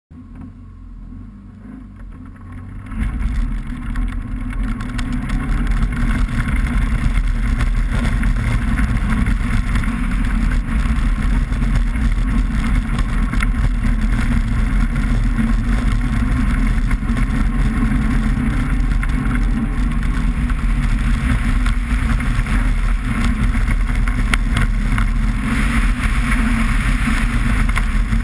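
2000 Subaru Impreza 2.5RS's flat-four engine running hard under racing load, its pitch rising and falling with the revs, over the rush of studded ice-racing tyres on the ice. Quieter at first, it comes up to full loudness about three seconds in.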